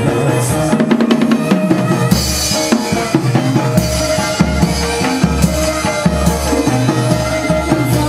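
Chầu văn ritual music led by drums: a quick run of sharp percussion clicks about a second in, then heavy, regular drum beats from about two seconds in, over sustained instrumental tones.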